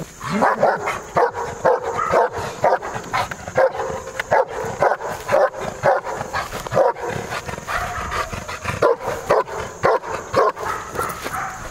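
German Shepherd barking hard and continuously at a helper in a protection blind, about two deep barks a second: the hold-and-bark of IPO protection work. The bark is big.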